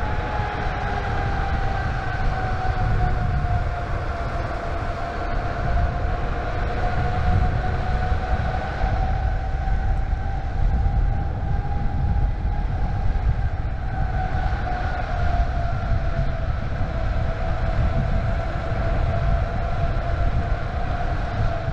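Electric skateboard cruising on direct-drive hub motors: a steady motor whine that drifts slightly in pitch with speed, under heavy wind buffeting on the microphone.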